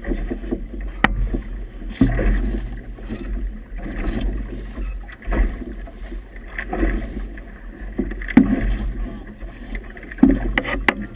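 Choppy river waves slapping and splashing against a small boat's hull in irregular surges every second or two, with wind buffeting the microphone as a steady low rumble. A few sharp knocks, about a second in and near the end.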